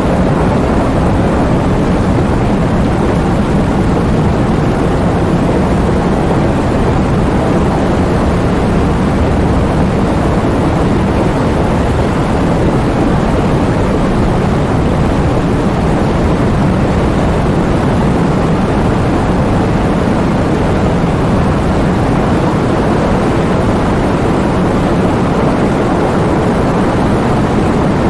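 Heavy thunderstorm with rain: a steady, deep rumble with no separate thunderclaps.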